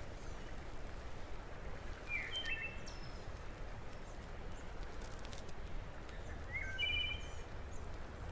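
A bird chirping twice over a steady low outdoor background hiss: a short run of chirps about two seconds in and another about seven seconds in.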